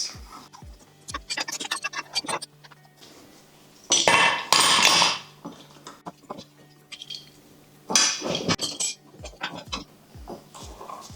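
Metal parts clinking and clanking as they are handled, with two louder bursts of noise, each about a second long, around four and eight seconds in, over background music with a steady beat.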